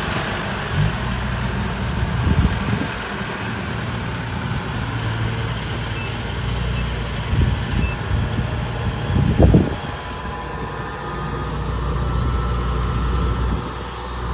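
Kubota combine harvester's diesel engine running steadily as the machine drives off, with a few short knocks, the loudest about nine seconds in.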